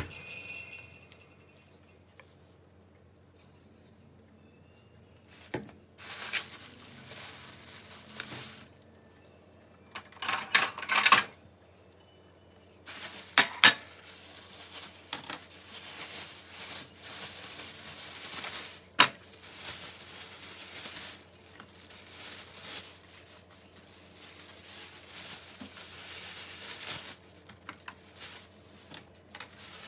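Thin plastic produce bag rustling and crinkling in long stretches as green onions are handled and pulled out, with a few sharp knocks of a plate being set down on the counter.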